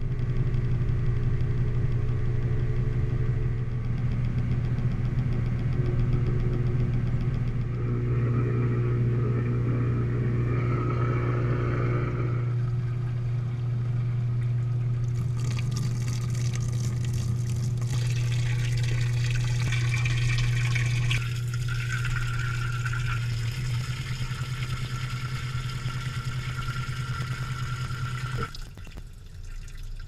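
Samsung high-efficiency top-load washer spinning its drum, a steady low motor hum heard from inside the tub. About halfway a steady water hiss joins in as water sprays into the spinning drum, and near the end the motor hum stops.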